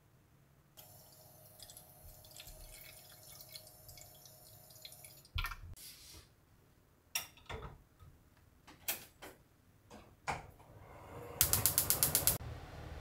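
Liquid pouring for a few seconds, then a metal pot knocked down onto a gas hob's grate. Near the end the gas stove's spark igniter clicks rapidly, about eight times in a second, and the burner lights with a steady low hiss.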